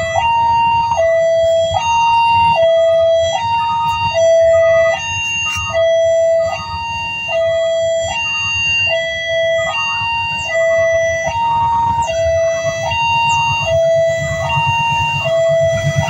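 Railway level-crossing warning alarm: an electronic two-tone signal alternating steadily between a high and a low tone, each held just under a second, warning that a train is approaching. A low rumble runs underneath.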